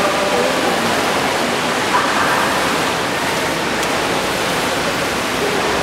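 Steady rushing noise of water being churned by swimmers in a pool, an even wash of splashing with no distinct strokes.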